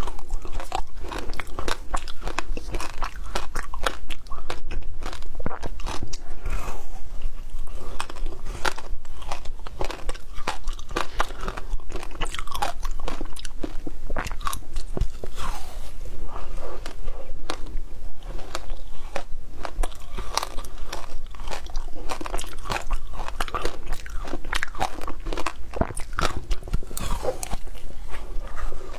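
Close-miked biting and crunching of a slab of frozen passion fruit ice: a continuous run of sharp cracks as pieces snap off and are chewed.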